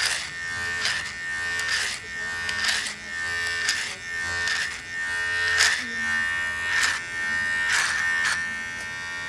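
Electric hair clippers running with a steady high buzz. A short rasp comes about once a second as they are stroked up through the hair at the nape and behind the ear.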